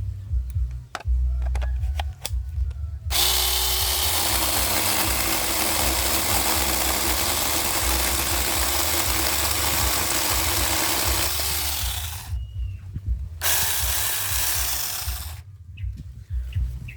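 A 6-inch mini chainsaw cutting teak wood: after a few light knocks, a long cut of about nine seconds starts about three seconds in, the motor's pitch dipping as the chain bites and falling again as it stops. After a short pause comes a second, shorter cut of about two seconds.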